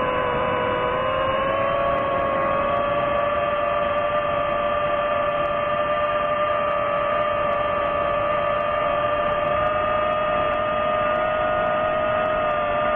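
DJI FPV drone's motors and propellers whining steadily in flight, a two-note drone-like whine over a rushing noise, its pitch dipping slightly about a second in and then holding level.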